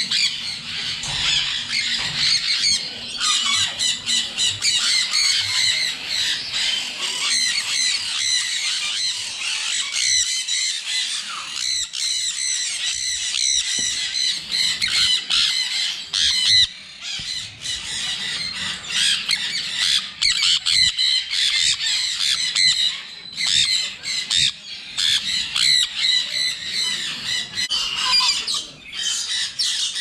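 Many caged parrots, sun conures among them, squawking and screeching at once: a dense run of shrill, overlapping calls with only a few short lulls.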